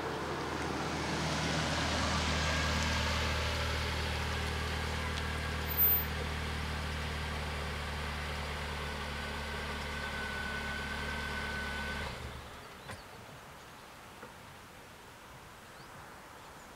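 A car drives up, then idles with a steady low engine hum. The engine cuts out suddenly about twelve seconds in. A single brief click comes about six seconds in.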